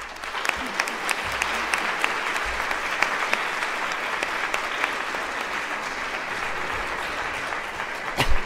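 Audience applauding steadily for several seconds, with a single thump near the end as the clapping dies away.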